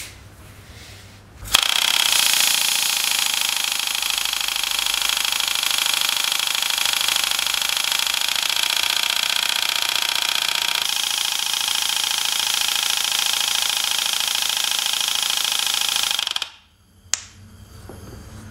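Licota's prototype rotary pneumatic valve-lapping tool, driven by compressed air, running with its suction cup on a valve in the cylinder head: it twists the valve back and forth against its seat. The steady air-driven rattle, with hiss and a high whine, starts about a second and a half in and cuts off abruptly near the end. A single click follows.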